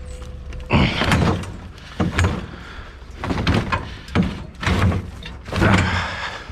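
A series of about six loud knocks and scrapes as heavy discarded items are shifted and set down during loading.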